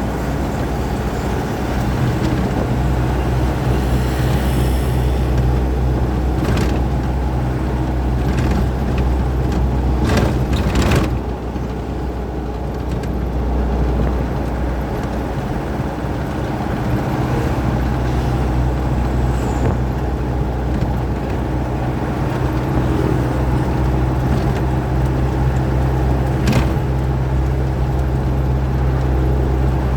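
Truck engine running steadily while driving on the road. The engine note fades for a few seconds about a third of the way in, then comes back. A few short knocks or rattles are heard along the way.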